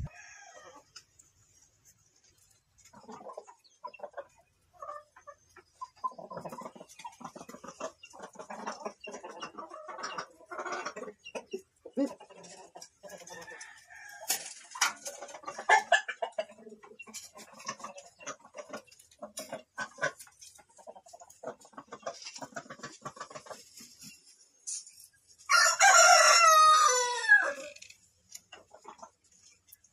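A rooster crows once near the end: a single loud call lasting about two and a half seconds. Before it, scattered faint short sounds and clicks.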